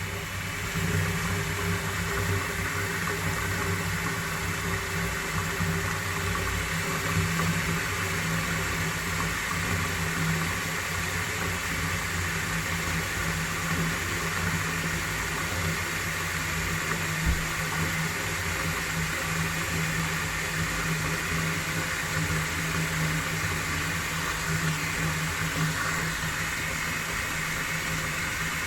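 Whirlpool vortex of water draining down a plughole, with a loud steady rushing noise and an unbroken low hum.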